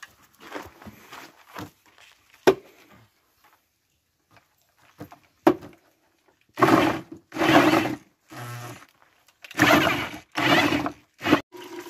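Cider press being worked: two sharp wooden knocks, then a run of short rasping strokes of about half a second each in the second half.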